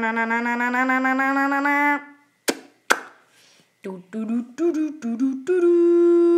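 A person's voice making drawn-out sound effects: a long buzzing tone that slowly rises in pitch and stops about two seconds in, then two sharp clicks. Short choppy vocal noises follow, and a steady held hum starts near the end.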